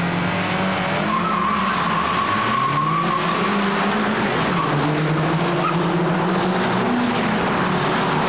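A grid of Opel Astra OPC cars making a standing start: engines held at high revs, then the field accelerates away together. There is a high tyre squeal from about one to three seconds in, and the engine notes climb, drop back at a gear change and climb again as the cars pull away.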